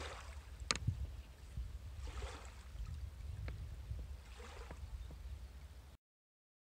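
Shallow river water splashing and sloshing in three bursts about two seconds apart as someone wading works at the surface, over a steady low rumble of wind on the microphone. A single sharp click comes under a second in, and the sound cuts off abruptly near the end.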